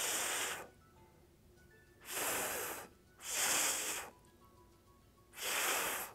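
A man voicing the voiceless TH four times in a row: a soft breathy hiss of air pushed over the tongue, held gently between the teeth, with no voice behind it. Each hiss lasts under a second, with pauses of about one to two seconds between them.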